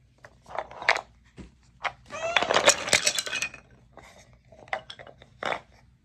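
Wooden toy tool pieces (pegs, nuts, bolts and planks) clattering against each other and the wooden box as they are tipped out onto carpet, a dense rattle about two seconds in lasting a second or so, with a few separate wooden knocks before and after.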